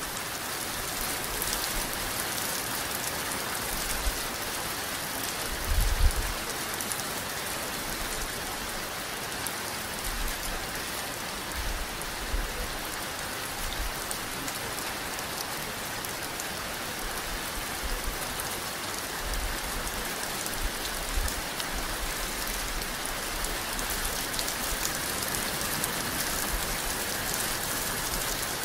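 Steady rain falling on a surface, an even hiss with scattered low rumbles, the loudest about six seconds in.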